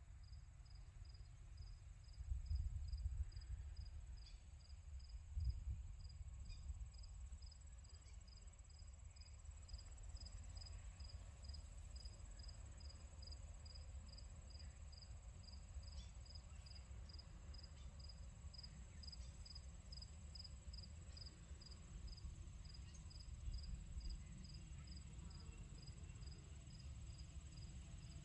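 An insect chirping steadily, short high chirps at about two a second over a steady high whine, with a low rumble on the microphone that swells twice in the first six seconds.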